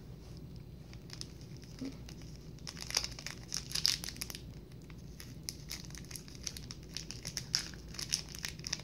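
Plastic wrapper of an Oreo chocolate bar crinkling and tearing as it is pulled open by hand, in irregular crackling bursts that are busiest around the middle and again near the end.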